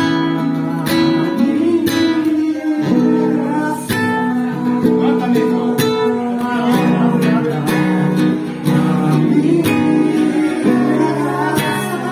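Acoustic guitar (violão) strumming chords in a song's instrumental passage, the strokes ringing into held notes.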